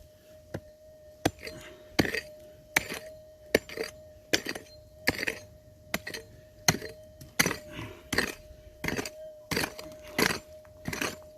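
A digging tool striking hard, stony ground in repeated blows, about one every 0.7 seconds, each with a sharp clink, over a steady tone.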